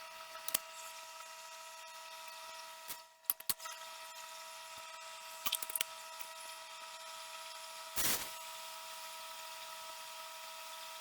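A steady whine from shop power equipment, cutting out briefly about three seconds in, with scattered clicks and knocks of handling metal parts and a short burst of noise about eight seconds in.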